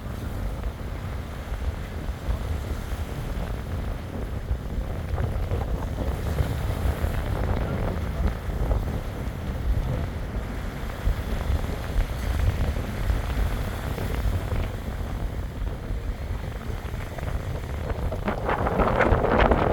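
Wind buffeting the microphone with a steady low rumble, growing into a stronger gust near the end.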